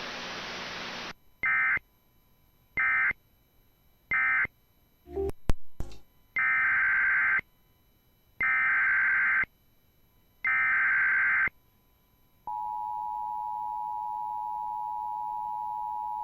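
Emergency Alert System data and alert tones. After about a second of radio hiss come three short SAME data bursts, the end-of-message code, then a couple of clicks. Three longer, one-second SAME header bursts follow, and then the steady two-tone EAS attention signal sounds for about four seconds and cuts off.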